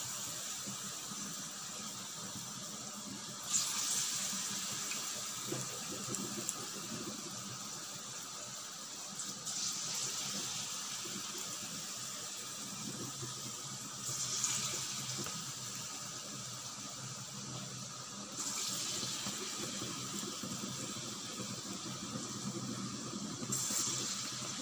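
Palm-fruit fritter batter deep-frying in hot oil in a kadai: a steady sizzling hiss that swells several times as more batter goes into the oil.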